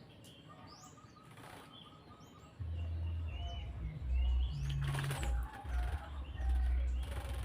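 Cucak jenggot (grey-cheeked bulbul) flapping and fluttering its wings while being bathed, with a few faint chirps. A low rumble comes in about two and a half seconds in and is the loudest part.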